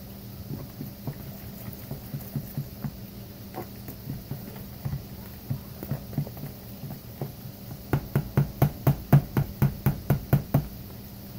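Metal fork stirring and beating thick hush puppy batter in a plastic bowl: scattered taps and scrapes, then a quick run of louder, even strokes, about five a second, near the end.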